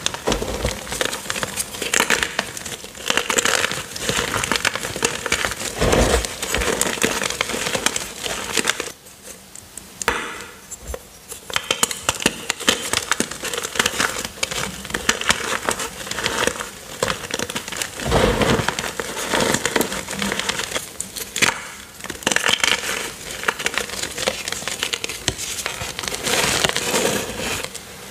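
Hands squeezing and crumbling purple-dyed gym chalk dusted with cornstarch: a dense run of crunching and crackling, with a short quieter lull about nine seconds in and a couple of dull thuds as the hands press into the pile.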